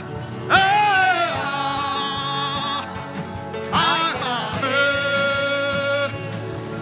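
A man's voice chanting two long, wordless held notes, each swooping up in pitch as it begins. Beneath it runs instrumental backing music with a steady soft beat.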